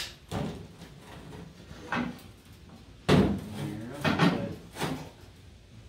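Sheet metal being handled and fitted: a series of clanks and knocks, the loudest about three seconds in, followed by scraping and wobbling of the metal.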